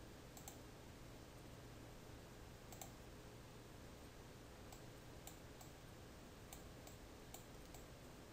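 Faint computer mouse clicks, about eight, irregularly spaced, over near-silent room tone with a low steady hum.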